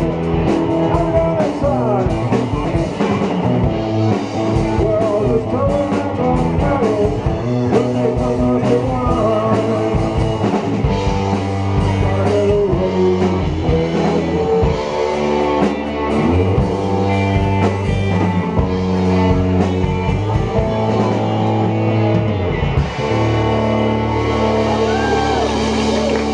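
Rock band playing live: electric guitar, bass guitar and drum kit.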